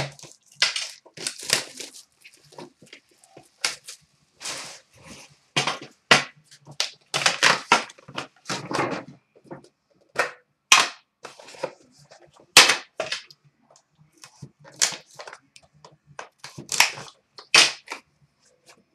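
Hockey card box and its sealed pack being torn open and handled: irregular sharp crinkling and ripping of wrapper and cardboard, in short bursts with pauses between, and a crisp click about two-thirds of the way through.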